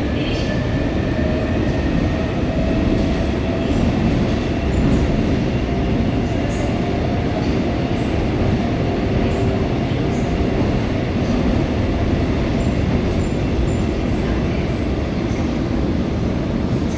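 Seoul Subway Line 4 electric train running along the track: a steady, loud rumble of wheels and running gear, with a faint high whine held above it.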